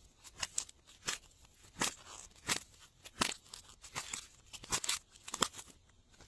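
Glossy slime being pressed and folded by hand, giving sharp sticky clicks and pops about one to two a second. They stop shortly before the end.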